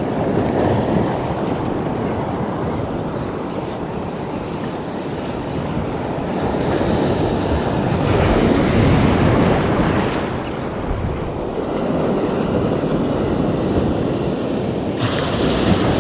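Ocean surf washing in and breaking around the shallows, a steady rushing wash that swells louder about halfway through and again near the end as a wave breaks close by.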